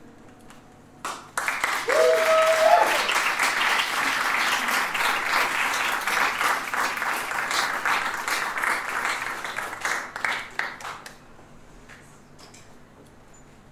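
Audience applauding for about ten seconds after a song, with one voice giving a short rising cheer near the start; the clapping tails off and stops.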